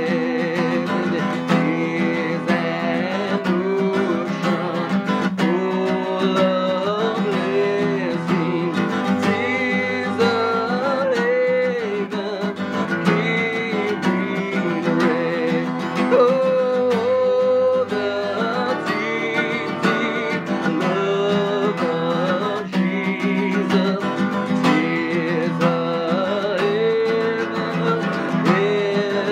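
Strummed acoustic guitar accompanying voices singing a hymn, with a steady, even rhythm.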